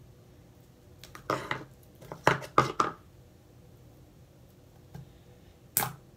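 Sticky slime being pulled and peeled off fingers and hands, giving short wet sticky smacks and crackles: a couple about a second in, a louder cluster of three between two and three seconds, and one more near the end.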